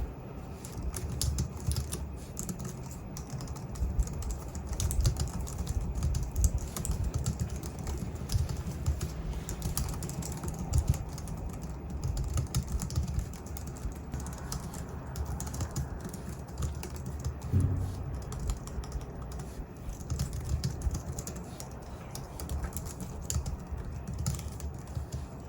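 Continuous typing on a Logitech MX Keys Mini's low-profile scissor-switch keys: a steady stream of key presses in quick succession, without pauses.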